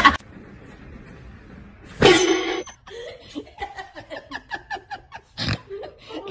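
A dog's voice: a loud pitched yelp about two seconds in, then a run of short rapid vocal sounds, about four a second. A thump falls among them near the end.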